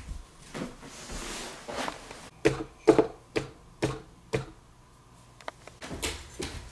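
Footsteps on a hard indoor floor: five even steps about two a second, with a soft rustle before them and a few more steps near the end.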